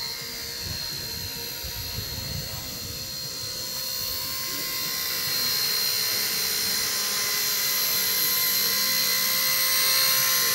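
Radio-controlled model helicopter hovering and flying: a steady high-pitched whine from its motor and rotors, growing louder about halfway through as it comes closer.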